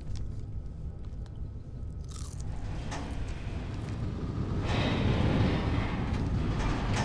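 Potato chips crunching as they are bitten and chewed. From about halfway through, a low rumble swells and keeps growing louder.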